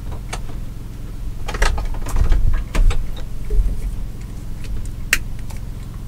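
Steady low hum of a running portable 2,000-watt generator, with scattered clicks and knocks of things being handled on a counter: a cluster in the middle and one sharp click about five seconds in.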